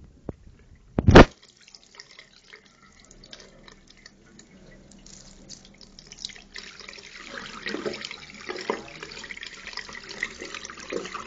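A sharp knock about a second in, then water trickling and splashing into a sink, growing steadier and louder after about six seconds: rinse water being poured off worms held in a cup.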